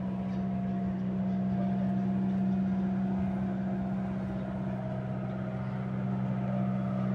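An engine running steadily with a low, unchanging hum.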